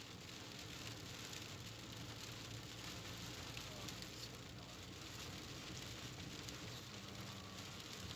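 Steady rain falling with a faint, even patter and scattered small drop ticks, over a faint low hum.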